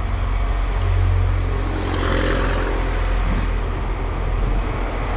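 Vehicle running with a steady low rumble, with a brief hissing swell of noise about two seconds in.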